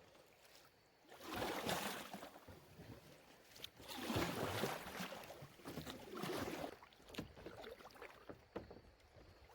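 Water swishing and splashing in three swells a couple of seconds apart, with small knocks in between.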